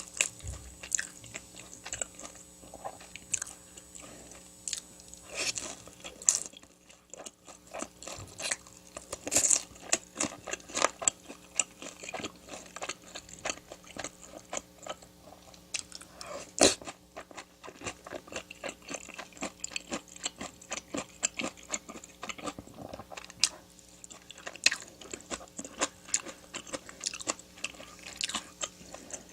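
A person eating close to the microphone: chewing and biting with frequent crunches and wet mouth clicks, in an irregular stream.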